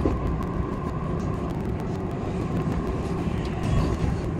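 Odakyu 8000 series electric train running, heard from the driver's cab: a steady low rumble with a constant tone and many quick clicks from the wheels on the track.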